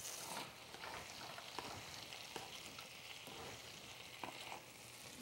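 Salmon steaks frying in a pan, a faint steady sizzle, with light rustling and ticks from wet salad greens being lifted into a paper-towel-lined bowl.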